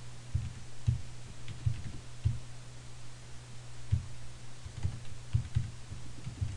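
Computer keyboard keystrokes and clicks, a dozen or so separate taps at an uneven pace as figures are typed into a spreadsheet, over a steady low electrical hum.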